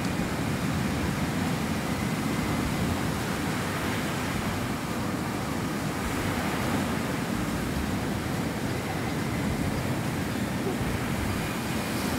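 Ocean surf: waves breaking and washing up a sandy beach in a steady rush.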